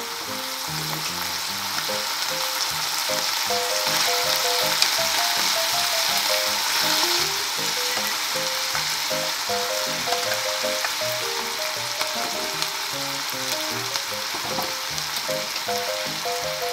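Oil sizzling in an aluminium frying pan with chopped nozawana greens, growing louder a few seconds in as boiled fusilli goes into the pan. Light background music plays along.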